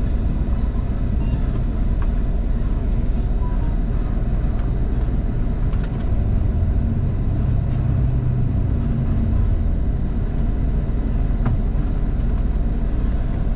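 Diesel bus engine idling at close range, a steady low rumble.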